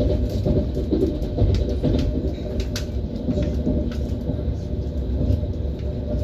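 ES1P Lastochka electric train running along the line: a steady low rumble with scattered short clicks of the wheels on the rails.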